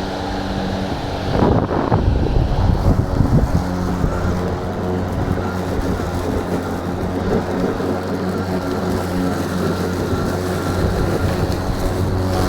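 EGO battery-powered lawn mower running, a steady motor-and-blade hum, with a louder rough rush about a second and a half in.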